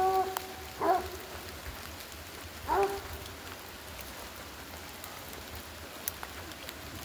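Hunting dogs baying during a wild boar drive: a few short, pitched yelps in the first three seconds, one held a little longer at the start, over a steady background hiss.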